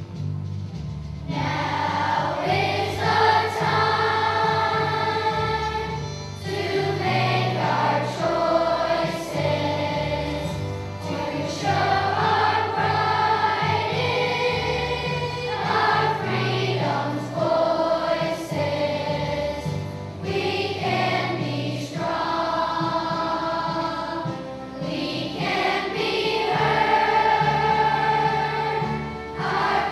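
Children's choir of fifth-graders singing in unison over an instrumental accompaniment with a steady bass line. The voices come in about a second in and go on in phrases with short breaths between them.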